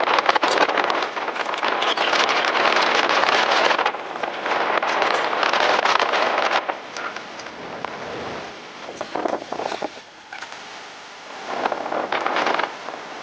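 Fish grilling over a fire, crackling and sizzling densely, easing off after about six and a half seconds and picking up again briefly near the end.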